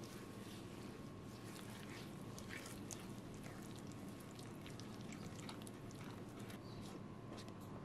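Silicone spatula stirring sour cream, eggs, sugar and flour in a glass bowl: faint wet stirring and scraping, with many small irregular clicks.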